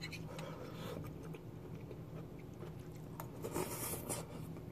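A person eating: chewing, small clicks of a fork against a ceramic plate, and a louder bit of scraping or biting about three to four seconds in as the fork goes to the mouth. A faint steady hum runs underneath.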